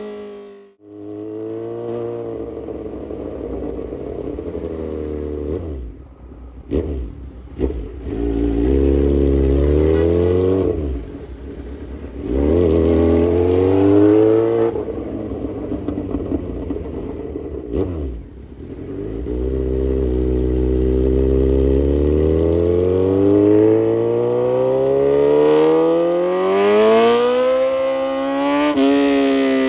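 Kawasaki Z900's 948 cc inline-four engine through an aftermarket full exhaust system, revving up and dropping off repeatedly as the rider accelerates and closes the throttle. A few sharp pops come during an off-throttle dip, and near the end the engine pulls in one long steady climb in pitch before backing off.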